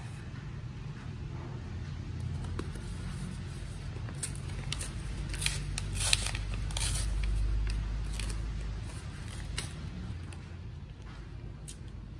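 Kraft-paper drip-coffee pouch being torn open and the paper filter bag handled: crinkling and tearing paper, loudest about six seconds in.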